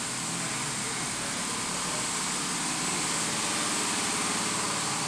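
An engine or motor running steadily with a low hum under a hiss.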